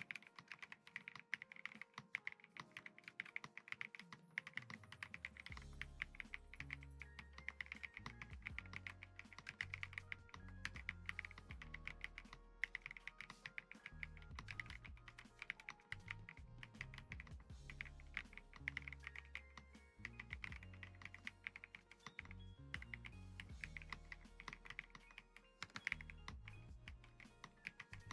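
Continuous fast typing on an Akko ACR Pro Alice Plus mechanical keyboard with Akko Crystal Blue switches: a rapid stream of keystroke clacks, over background music whose bass line comes in about four seconds in.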